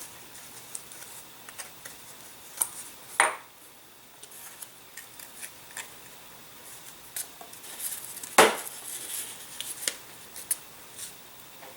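Light clicks and taps of small model airplane parts and tools being handled on a workbench while the wing is fitted, with two louder sharp knocks, one about three seconds in and one just past eight seconds.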